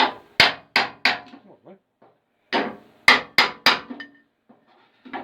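Hammer blows on the sheet-steel edge of an Austin A30 front wing, knocking the cut flange over so it sits flush with the body. There are two runs of about four blows, with a pause between them, and each blow rings briefly in the thin steel.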